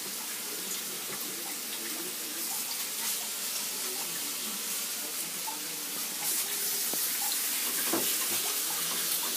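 Strips of sirloin sizzling in a frying pan on a gas stove: a steady hiss. A fork clinks against the pan about eight seconds in.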